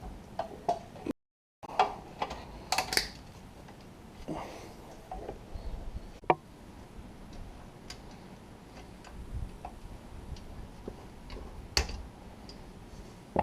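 Scattered, irregular light clicks and taps of hand tools and small metal seat parts being handled during disassembly, with a sharper click about six seconds in and another near the end.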